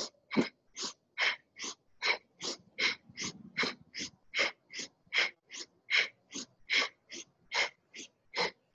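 A woman breathing quickly and rhythmically, about two and a half breaths a second, each inhale and exhale paced to a fast yoga arm movement: inhale as the arms sweep up, exhale as they come down.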